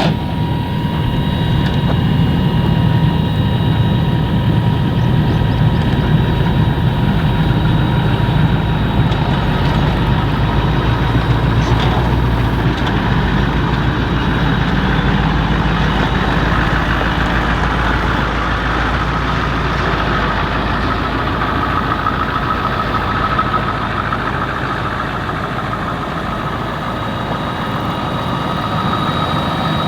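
Kubota M7-172 tractor's diesel engine and a pull-type New Holland FP230 forage harvester running steadily while chopping corn: a continuous low engine rumble with a steady high whine over it.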